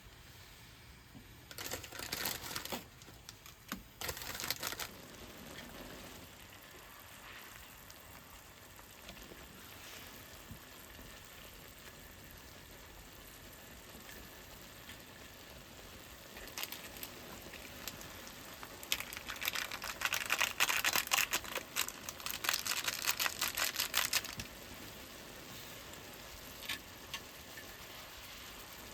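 Intermittent crinkling and rustling, like something being handled: short bursts about two and four seconds in, then a longer stretch of it past the middle, with faint clicks between.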